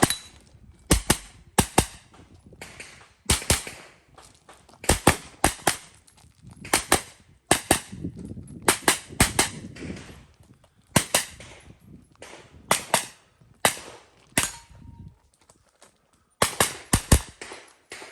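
A long string of gunshots, mostly fired in quick pairs or small groups with short pauses between them, typical of a shooter working through a practical shooting stage.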